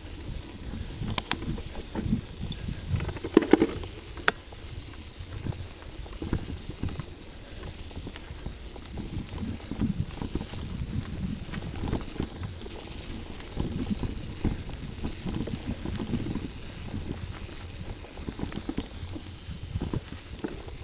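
Bicycle rolling over a bumpy dirt forest trail: irregular low rumbling and knocking, with a few sharp clacks between about one and four seconds in.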